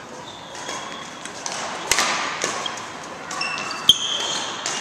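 Badminton rally: sharp cracks of rackets hitting the shuttlecock, the loudest about four seconds in and another about two seconds in, with court shoes squeaking briefly on the floor.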